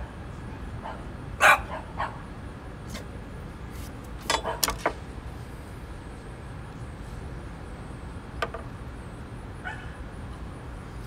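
An animal's short, sharp yelps. One loud yelp comes about a second and a half in, with a quieter one just after. A quick run of about four follows near four and a half seconds, then a couple of faint single ones later, over a steady low background hum.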